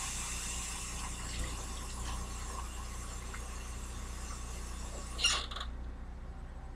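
Tap water running steadily onto a cloth to wet it, shut off about five and a half seconds in.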